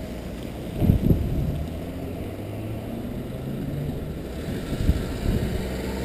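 Car engines running close by in traffic, a low steady drone, with wind buffeting the microphone in low gusts about a second in and again near the end.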